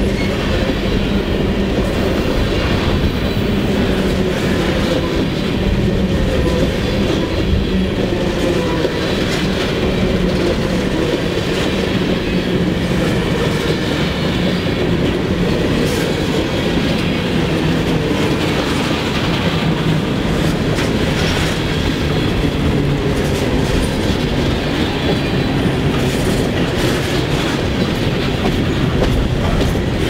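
Empty coal hopper cars rolling past, with a steady rumble of steel wheels on rail and scattered clicks as the wheels cross the rail joints.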